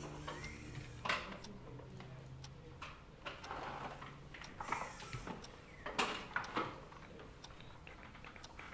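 Quiet room with scattered light clicks, knocks and short rustles of people moving about at a table; background music fades out in the first second or so.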